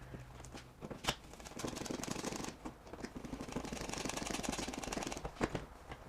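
Hand work on a wall electrical box: separate clicks and knocks, with a few seconds of rapid rattling clicks in the middle, as wiring and a smart light switch are pushed back into the box.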